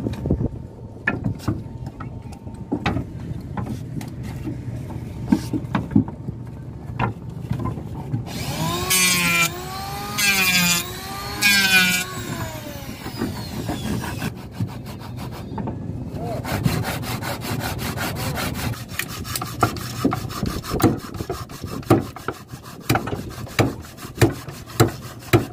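Hand tools on a wooden boat deck: scattered hammer knocks on wood and chisels. About eight seconds in, a handheld electric power tool cuts into a plank three times in quick succession, its motor pitch dipping under load and recovering each time. From about sixteen seconds on comes steady, rapid sawing of wood, with sharp hammer blows on a chisel near the end.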